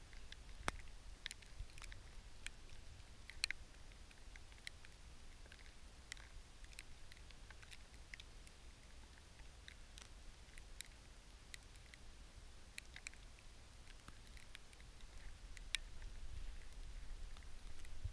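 Faint, irregular light ticks and small crackles, scattered every half second or so, over a low steady rumble.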